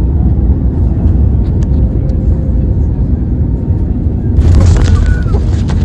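Airliner cabin noise after landing: a steady low rumble of the aircraft rolling on the ground, with a louder hiss coming in about four and a half seconds in.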